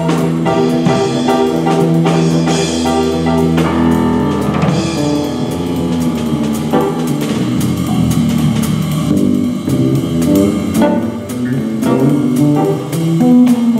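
Jazz piano playing chords and runs, with a drum kit playing along.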